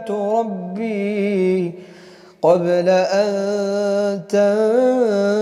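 A man chanting the Quran in melodic tajweed style, stretching the vowels into long, wavering, ornamented notes. The voice breaks off for a breath at about two seconds in, then resumes loudly.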